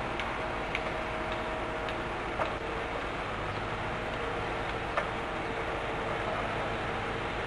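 Steady machinery noise with a faint hum and a few scattered light clicks.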